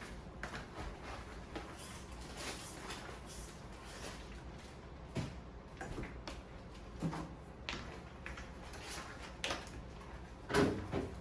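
Food containers being set into a refrigerator: scattered knocks and clunks of containers on the fridge shelves and the door, the loudest a double knock about ten and a half seconds in.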